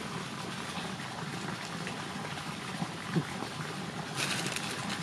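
Steady water-like rushing noise. From about four seconds in, a crackly rustle of dry leaves and grass joins it as hands push through the undergrowth.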